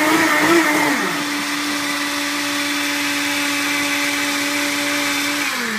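Two countertop blenders, a Blendtec and a Cuisinart, blending a red fruit-and-ice drink side by side. One motor winds down with a falling pitch about a second in. The other runs on at a steady pitch, then begins to wind down near the end.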